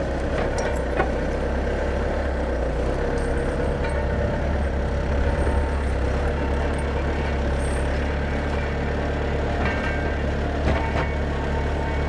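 Bobcat S300 skid-steer loader's diesel engine running steadily as the machine works a white pine log on its pallet forks.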